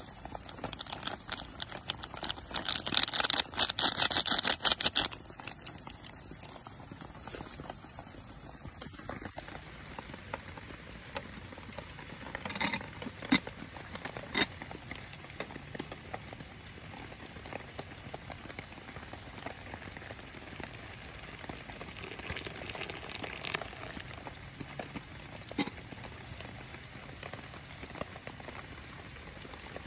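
A foil coffee sachet crinkling as instant coffee powder is shaken out of it, a loud dense rustle for a few seconds near the start. After that come scattered light clicks and pattering.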